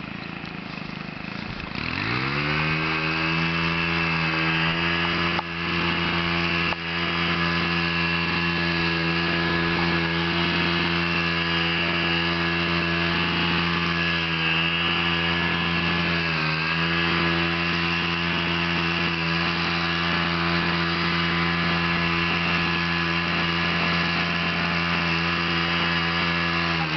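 An engine comes up to speed about two seconds in and then runs steadily, dipping briefly in pitch a few times.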